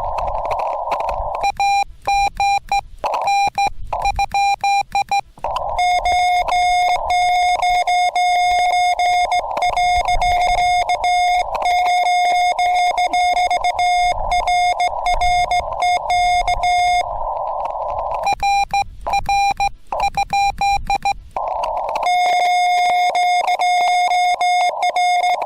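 Morse code (CW) tones from a Yaesu FT-891 transceiver, a single pitch keyed on and off in dots and dashes in long runs. Between runs, near the start and twice later, there is narrow-filtered band noise hiss from the receiver.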